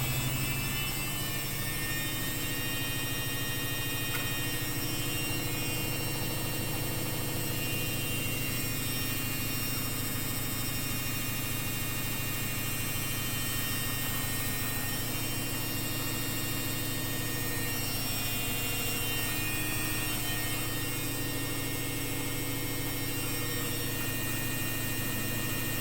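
Samsung Ecobubble washing machine running, a steady motor hum with a thin whine above it and no change in pitch.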